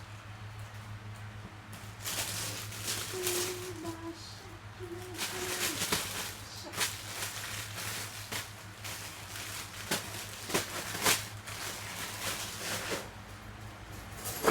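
Irregular rustling and handling noises with scattered sharp clicks, starting about two seconds in and dying down near the end, over a steady low electrical hum.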